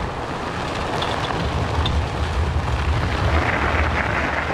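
Steady low rumble and wind rush on the microphone as a powered parachute cart rolls along a dirt airstrip.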